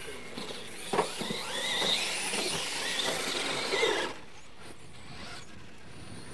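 Brushless electric motors of Losi LMT radio-controlled monster trucks whining, rising and falling in pitch as the trucks accelerate and slow, with a couple of sharp knocks about a second in. The whine stops abruptly at about four seconds, leaving a quieter hiss.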